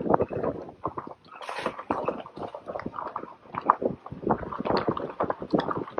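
A vehicle rolling slowly along a rough dirt road: a quick, irregular run of knocks, crunches and rattles from the tyres and the body over the bumps.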